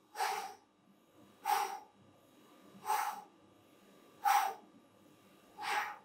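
A person exhaling hard and short in a steady rhythm from exertion during cardio exercise, five breaths about a second and a half apart.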